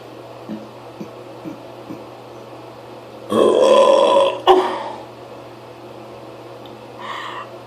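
A person forcing out a loud, drawn-out burp of about a second, about three seconds in, followed straight away by a second, shorter burp. A fainter short sound comes near the end.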